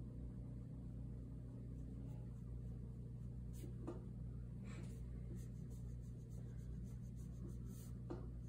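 Faint scratching of a small paintbrush on canvas and paper palette, with a few soft taps, over a steady low hum.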